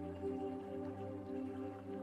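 Soft ambient background music of sustained, held tones.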